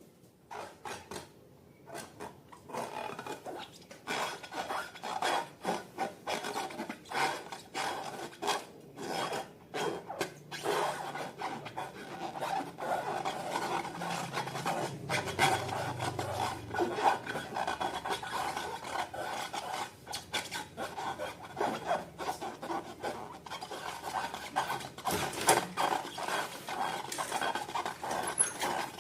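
Slime being mixed: continuous sticky scraping and rubbing, full of small clicks and crackles.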